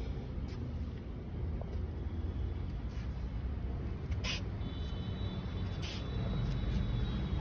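Steady low outdoor rumble of background noise, with a faint thin high tone coming in about four and a half seconds in.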